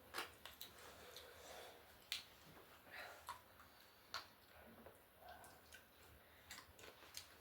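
Faint eating sounds: scattered small clicks and smacks of chewing.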